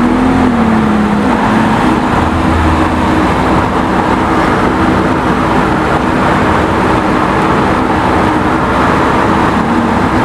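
Porsche 992 GT3's flat-six engine running at low revs as the car creeps forward, a steady engine note with a brief rise and fall in pitch about a second in.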